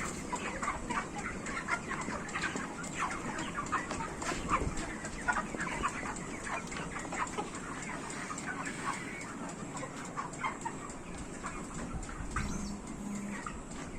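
A large flock of broiler chickens clucking and chirping, many short overlapping calls.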